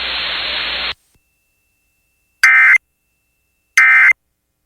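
Weather radio static hiss that cuts off about a second in, then after a short silence two brief, harsh buzzing bursts of Emergency Alert System digital data tones about a second and a half apart: the end-of-message code that closes the alert.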